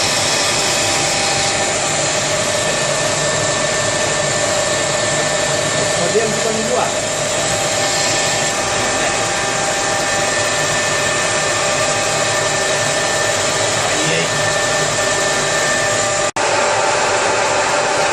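Lathe running steadily: a continuous whirring with a fixed whine over it. There is a small blip about six seconds in, and the sound cuts out for an instant near the end.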